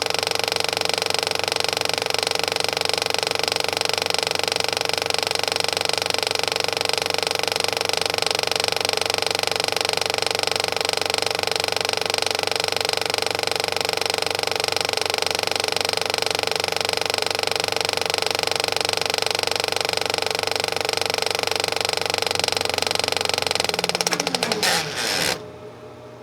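Projector running with a steady mechanical whir, then winding down with a falling pitch about 24 seconds in and stopping near the end, leaving a faint hiss.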